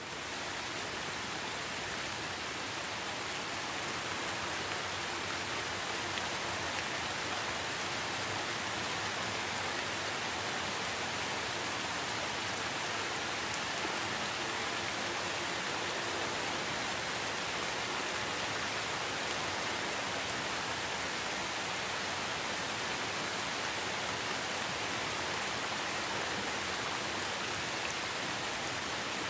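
Steady, even hiss of water at the surface of the lake, heard from a camera sitting right at the waterline; no scooter motor is running.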